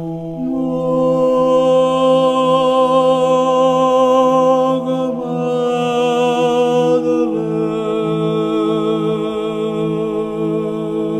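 Slow chanted vocal music: long held sung notes over a steady low drone, the melody moving to a new note every few seconds.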